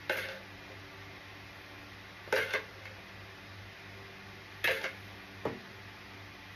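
Kitchenware clattering: a spoon and bowl knocking and scraping against glass baking dishes, four short clinks a couple of seconds apart, over a steady low hum.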